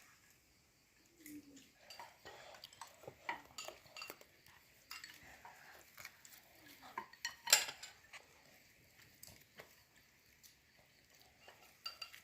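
Scattered light clinking and clicking of dishes and utensils, with one louder clink about seven and a half seconds in.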